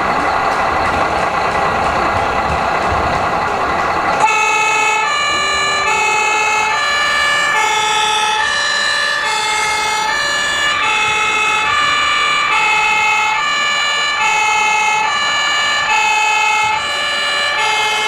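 Two-tone emergency siren from an RC model fire truck's sound module. It sets in suddenly about four seconds in, after a steady noisy din, and then switches evenly back and forth between a high and a low note, each held for well under a second.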